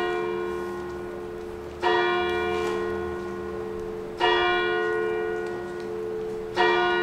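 A single bell tolling slowly, one stroke about every two and a half seconds, three strokes in all, each ringing on and fading into the next.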